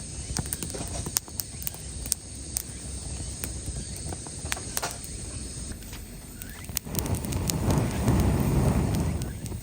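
Wood campfire crackling, with scattered sharp pops. About seven seconds in, a louder low rushing noise builds up.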